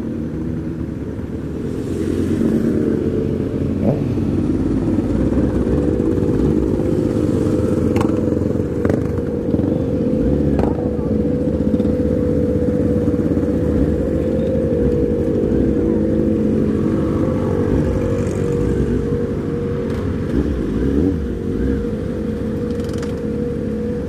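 Kawasaki Z750's inline-four engine running steadily as the bike rides along, picked up close by the bike's own camera. It gets louder about two seconds in, with a few short clicks along the way.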